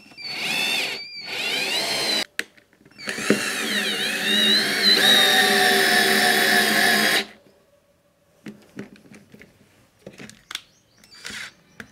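Drill-driver motor running as it drives a screw into a wooden block, in two runs: a short burst of about two seconds with a brief break, then about four seconds with the pitch rising and falling. The motor stops about seven seconds in, and only faint clicks follow.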